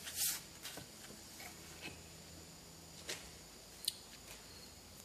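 A few faint, scattered knocks and rustles of small wooden pieces and paper being handled on a workbench, the loudest about a quarter second in, over a faint steady hum.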